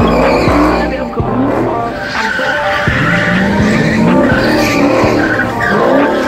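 Car engine revving up and down hard while the tires skid across wet pavement as the car drifts.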